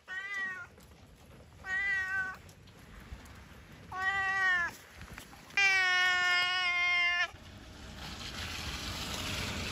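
Domestic cat meowing four times, a second or two apart, the last call long and drawn out. A rustling noise builds near the end.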